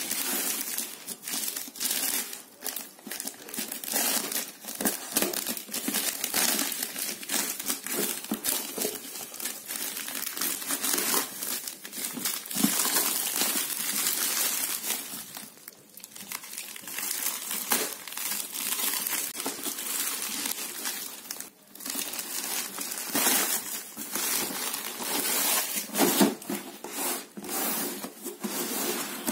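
Plastic courier mailer bag crinkling and tearing as it is cut open and pulled apart by hand, with a couple of brief pauses.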